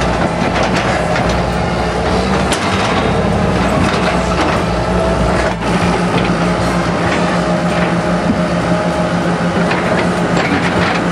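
John Deere 160C LC hydraulic excavator's diesel engine running steadily, with scattered knocks and scrapes from its bucket breaking up asphalt paving.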